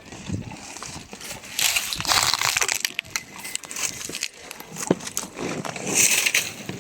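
Crunching and crackling of dry corn stalks and leaves, in irregular bursts, loudest about two seconds in and again near the end.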